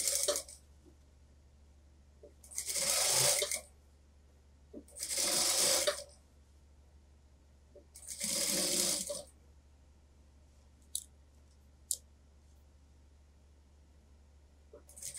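Computerised industrial sewing machine stitching in short runs of about a second each, three times with pauses between, as a suit-jacket sleeve is sewn into the armhole. Two sharp clicks near the end.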